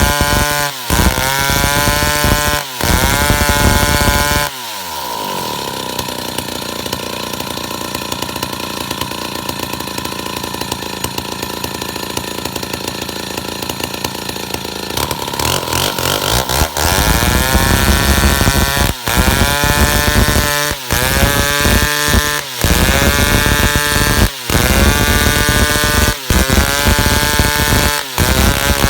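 Stihl two-stroke chainsaw sawing eucalyptus wood: the engine runs at high revs, its pitch sagging and climbing back in repeated cycles about every two seconds. About four seconds in it drops to idle, then about twelve seconds later revs back up and the cycles resume.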